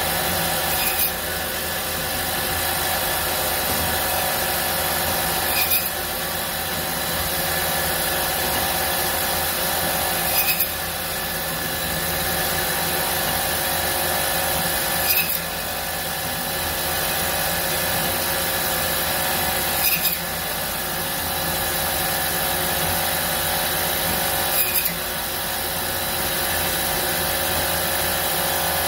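Automatic meat-cutting band saw running steadily as it slices a pork loin into chops, with a short sharp sound repeating about every five seconds as the machine goes through its cycle.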